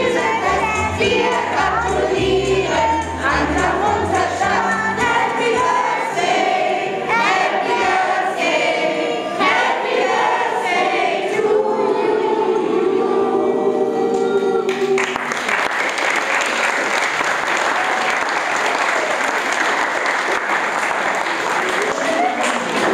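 A group of children and adults singing a song together; about two-thirds of the way through the song ends and the crowd breaks into applause.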